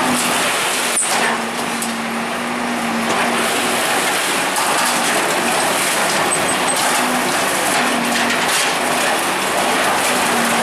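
Bulldozer engine running steadily, its hum coming and going over dense noise, with a single sharp knock about a second in.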